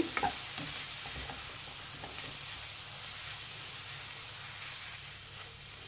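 Drumstick leaves and beaten egg sizzling steadily in a frying pan on medium flame while a wooden spatula stirs them, the egg frying until its raw smell is gone. The sizzle eases off slightly near the end.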